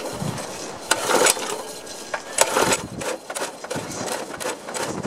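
Pull-start attempts on a McLane reel mower's small Briggs & Stratton engine: the recoil starter rope is pulled and the engine turns over but does not catch. Between pulls there are clunks and rattles. The owner blames carburetor problems for the failure to start.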